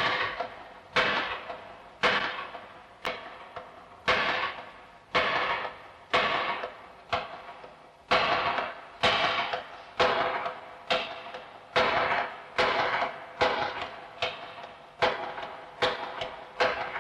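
Wooden klepalo (semantron), a hanging board struck with a mallet: an uneven rhythm of ringing knocks, about one a second with quicker strokes worked in between. It is the signal calling the monks to prayer.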